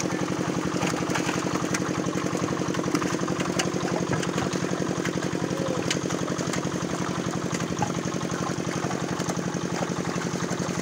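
An engine running steadily at an even idle, with the light splashing of fish thrashing in a net in shallow water.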